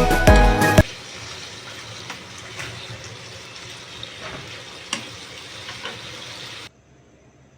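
Food frying in a pan: a steady sizzle with occasional sharp pops, stopping abruptly near the end. Background music plays briefly at the start.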